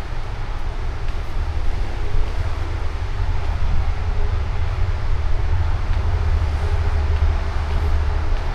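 Steady low rumble with an even hiss above it: the ambient noise on board a docked cruise ship, with no single event standing out.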